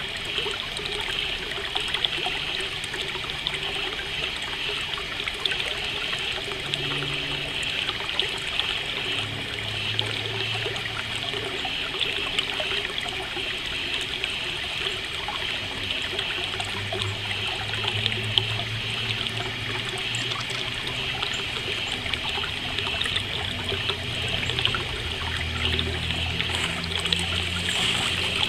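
Nature ambience: water trickling in a stream, with a steady high chorus of crickets over it.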